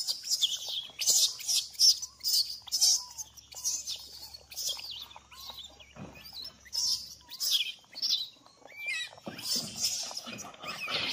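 Animal calls: quick high-pitched chirps repeating about twice a second, with a few fainter lower calls in between.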